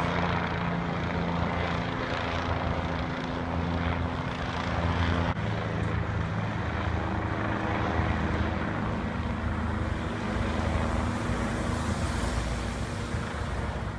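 Helicopter flying overhead: a steady drone of rotor and engine with a low hum.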